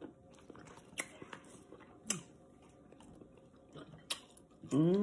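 Close-up mouth sounds of someone eating soft homemade fried potatoes: quiet chewing with a few sharp smacking clicks. Near the end comes a short hum rising in pitch.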